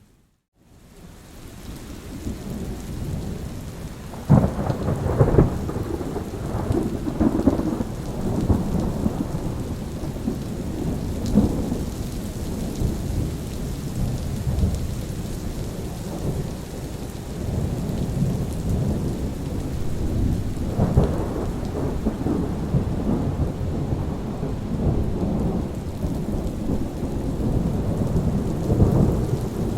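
Thunderstorm: steady rain with low rolling thunder. The sound drops almost to nothing for a moment at the very start, then the rumble builds, with sharp thunder cracks about four and five seconds in and another about twenty-one seconds in.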